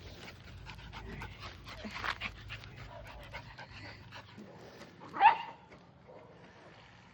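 Dog panting and moving about, with many small clicks and rustles, and one short, loud yelp about five seconds in.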